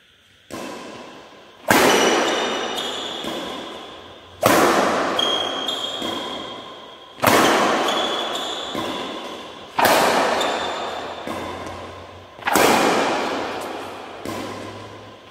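Sharp thuds about every two and a half to three seconds, five loud ones after a faint first one, each ringing on for about two seconds in a large metal-walled sports hall: a player stamping through backhand shadow-stroke footwork on a badminton court.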